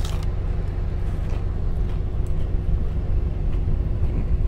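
Steady low engine rumble heard inside a semi-truck cab, the truck's engine idling. A sharp crunch right at the start as a deep-fried taco shell is bitten into.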